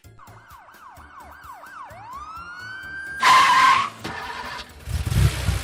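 Cartoon police car sound effects: a siren wailing in quick falling sweeps, about three a second, then winding up in one long rising wail, followed about 3 s in by a loud, short tyre screech and, near the end, a low engine rumble.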